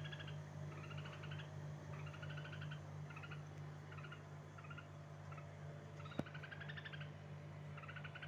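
A bird calling over and over, about once a second, in short raspy calls. A steady low hum runs underneath, and a single sharp click comes about six seconds in.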